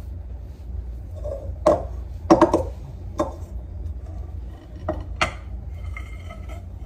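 A large glass mixing bowl knocking and clinking against a granite countertop several times while pie dough is pressed in it and turned out, the sharpest knock a little over two seconds in. A steady low hum runs underneath.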